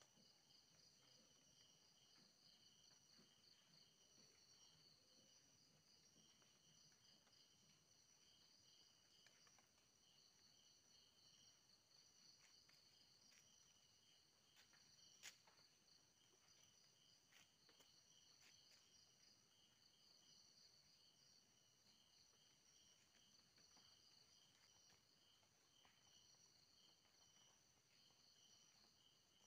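Faint chorus of night insects, crickets trilling: steady, finely pulsing chirring at several high pitches. One faint click about halfway through.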